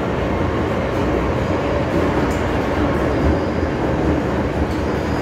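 MTR M-Train electric multiple unit running at speed through a tunnel, heard from inside the car: a steady rumble of wheels on rail and running gear.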